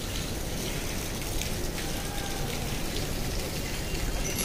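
Steady hiss and patter of water, with faint scattered drips and splashes.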